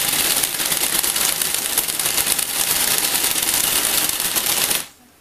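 Lego Technic tracked vehicle running: electric motors whirring and plastic gears and tracks clattering in a dense, rapid stream of clicks, which stops suddenly near the end.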